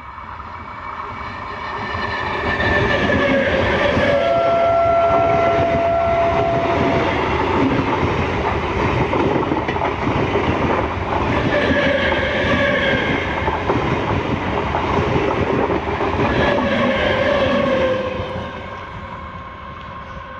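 MEMU electric multiple-unit train passing at speed, its wheels clattering rapidly over the rail joints as the coaches rush by. A horn sounds steadily for about three seconds a few seconds in. The noise swells as the train arrives and drops off near the end as it moves away.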